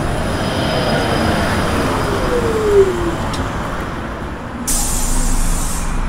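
Bus engine running as it pulls up, with a falling tone about two and a half seconds in, then a burst of air-brake hiss lasting over a second near the end.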